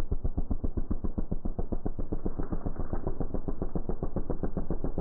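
Sport quad engine under throttle, heard slowed down and muffled: a deep, even throb of separate firing pulses, about ten a second.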